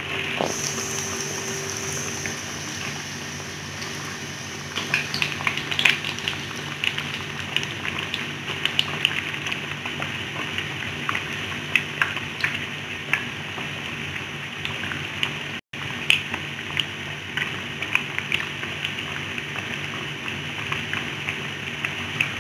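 Hot oil sizzling steadily around breaded vegetable bread patties frying in a pan, with frequent sharp crackles and pops that grow busier from about five seconds in.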